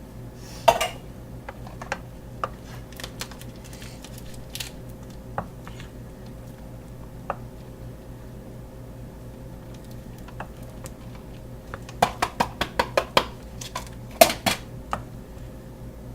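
Kitchen dishes and utensils clattering: a sharp clink about a second in, scattered light clicks, then a quick run of about seven taps and two louder clinks near the end, over a steady low hum.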